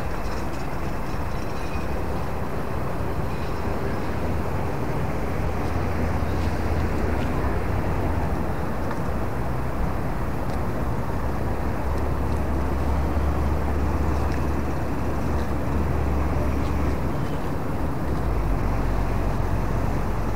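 Steady road traffic noise, with the low drone of vehicles passing and fading over several seconds at a time.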